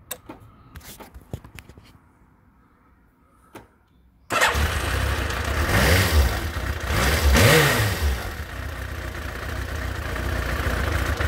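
A few light clicks, then a little over four seconds in the 1996 Yamaha FZR1000's inline-four fires up from a cold start. It revs twice, rising and falling in pitch, and settles into a steady idle.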